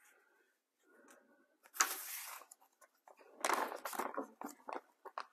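Clear plastic zip-top bag rustling and crinkling as it is handled and opened, with louder bursts about two seconds in and again about three and a half seconds in.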